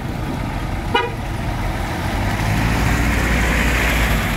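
Truck engines running as a Hino Dutro truck drives through deep floodwater toward the listener, the rush of water splashing off its wheels swelling from about two seconds in. A short vehicle horn toot sounds about a second in.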